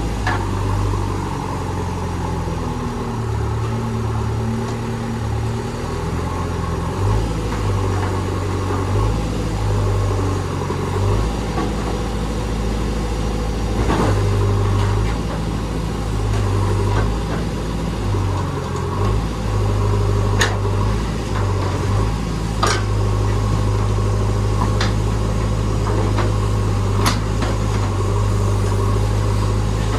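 JCB backhoe loader's diesel engine running steadily, its note stepping up and down as the machine works, with a few sharp knocks scattered through.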